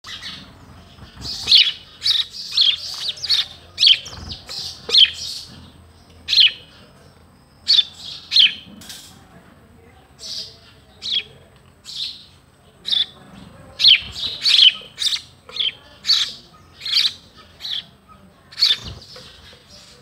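House sparrow chirping: a steady series of short, sharp chirps, one to three a second, with a few brief pauses.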